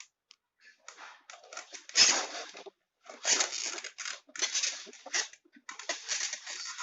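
Packaging being handled and torn open: irregular crinkling and ripping, with one sharp knock about two seconds in.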